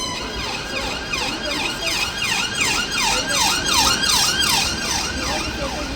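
Emergency vehicle siren in a fast yelp, its pitch sweeping up and down about three times a second, loudest around the middle.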